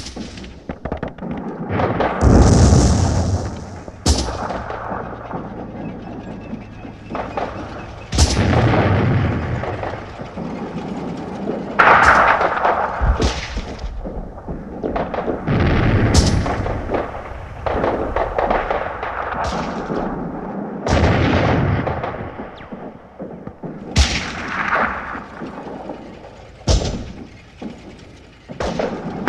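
Battle sound effect of gunfire and artillery: sharp shots and booms every two to four seconds, each trailing off in a long rumbling echo.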